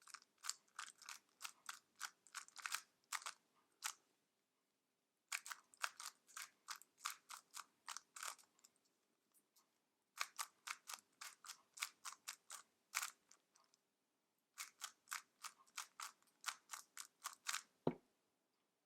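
A 3x3 speed cube being turned by hand: rapid clicking of its layers snapping round, several turns a second, in four runs of algorithm moves with short pauses between, and a single soft knock near the end.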